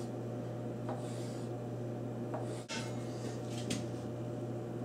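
A few light taps of a kitchen knife meeting a wooden cutting board as it slices through a slab of agar jelly, over a steady low room hum.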